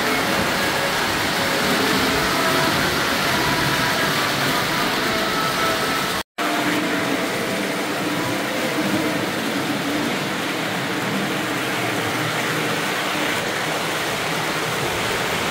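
Model electric trains running on their track: a steady rushing rumble of wheels and motors, broken by a brief dropout about six seconds in.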